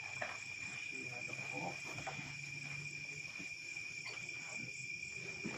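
Night insects, crickets, trilling steadily at one high pitch, with fainter higher tones over it. A faint low hum sounds from about a second and a half in to about three seconds in, and there are a few faint knocks.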